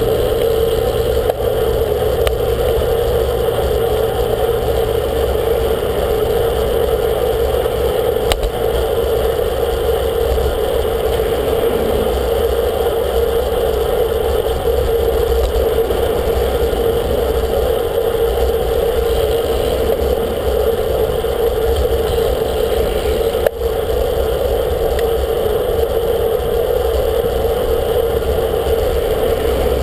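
Steady rushing noise of a road bike ride picked up by a bike-mounted camera: wind on the microphone mixed with tyre and road noise and passing traffic, with a single sharp knock about three quarters of the way through.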